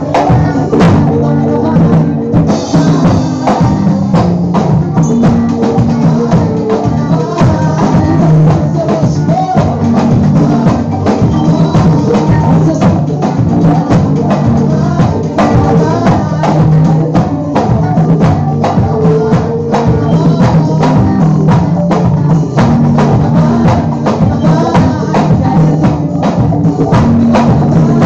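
A live band playing loudly through a PA: drum kit keeping a steady beat under electric bass and guitars.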